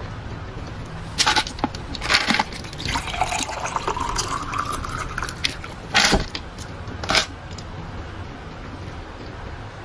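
Wet eating sounds of a person eating saucy stewed fish with her fingers: a handful of sharp, loud lip smacks and sucks in the first seven seconds. In the middle there is a longer slurp whose pitch rises.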